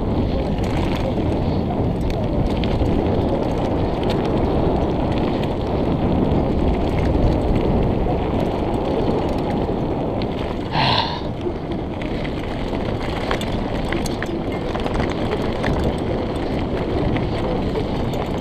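Mountain bike rolling fast down a dirt trail: tyres rumbling over dirt and gravel, and the bike rattling over bumps, with wind noise on the microphone. A brief higher-pitched squeak about eleven seconds in.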